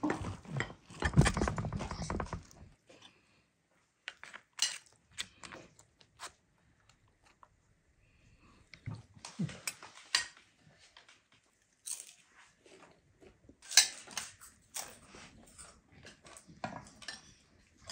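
A knife crunching through crisp-baked lavash and chicken kebab and scraping on a metal baking tray for the first few seconds. Then scattered clinks and scrapes of a spoon and cutlery on plates and the tray.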